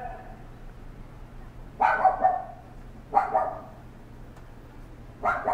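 A dog barking three times, the first about two seconds in and the last at the end, over a faint low steady hum.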